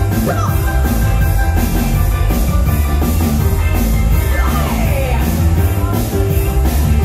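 Live band playing an upbeat rock song, with a steady drum-kit beat under guitar and bass.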